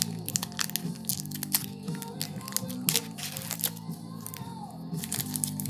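Background music with steady low notes, over which a foil booster-pack wrapper and trading cards crinkle and click sharply and irregularly as they are handled.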